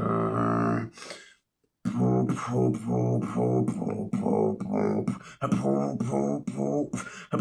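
Vocal beatboxing with chewing gum in the mouth: a held hummed tone, a short break, then from about two seconds in a steady rhythm of voiced bass notes with clicks and hisses between them.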